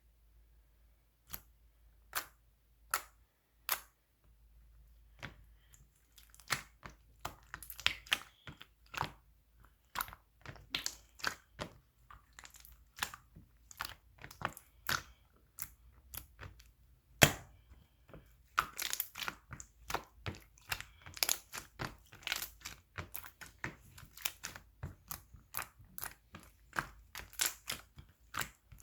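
Clear slime being squeezed and poked by hand, making sharp clicks and crackling pops. A few separate pops at first, then denser, irregular crackling, thickest in the second half.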